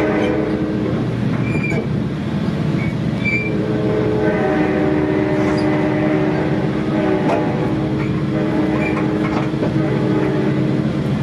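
Inside a commuter-train coach rolling slowly: a steady low rumble from the wheels and running gear. From about four seconds in until near the end, a chord of several steady tones sounds together and then stops: the horn of the F59PHI diesel locomotive, muffled as it is heard from inside the train.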